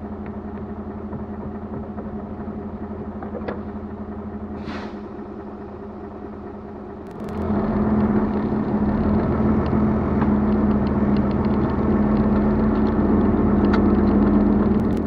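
Expedition vehicle's engine running steadily as it drives along a rough dirt track, with a short swish about five seconds in. About seven seconds in the sound gets suddenly louder, with more engine and rough rolling noise and small rattles.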